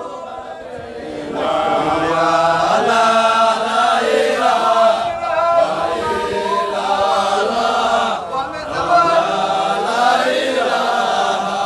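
Group of voices chanting a Sufi dhikr together in a drawn-out, melodic unison line.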